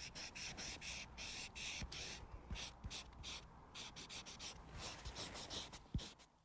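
Broad chisel tip of an alcohol marker rubbed in quick, short shading strokes close to the microphone: a rapid scratchy run of about three or four strokes a second.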